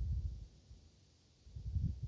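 Thunder rumbling low: a roll dies away in the first half second, and a second, shorter rumble swells up about a second and a half in.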